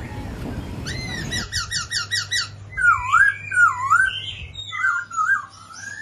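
Caged songbird singing a whistled song: a quick run of short down-slurred notes, then two loud looping whistles that dip and rise, then softer warbling notes near the end.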